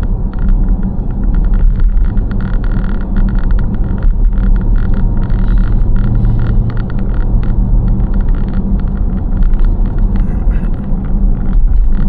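Steady road and engine rumble of a moving car heard from inside the cabin, with a low engine hum that grows stronger for a few seconds midway and then eases.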